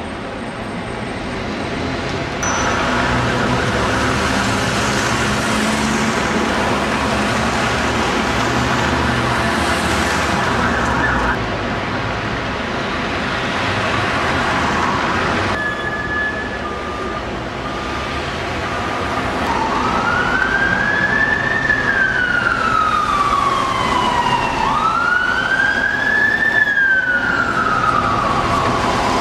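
Busy street traffic with bus and car engines running close by. About two-thirds through, an emergency vehicle's siren starts wailing, rising quickly and falling slowly in cycles of about five seconds, and it becomes the loudest sound.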